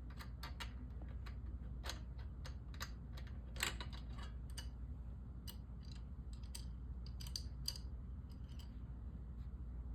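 Irregular light clicks and taps of hands and a screwdriver working the screws as a blade is taken off a Panama vent ceiling fan, over a steady low hum.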